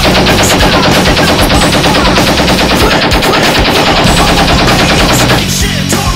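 Several machine guns firing continuous, rapid automatic fire at once, a dense unbroken stream of shots.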